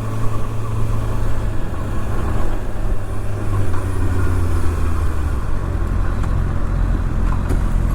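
Kawasaki ZX-6R (2024) inline-four engine running at low revs while the bike is ridden gently. A steady low hum that drops a little in pitch midway and comes back up near the end.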